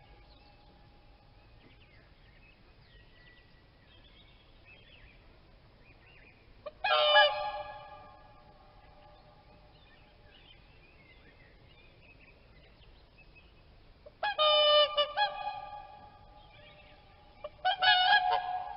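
Swans honking: one loud call about seven seconds in, a run of honks around fifteen seconds, and another burst just before the end, with faint softer calls in between.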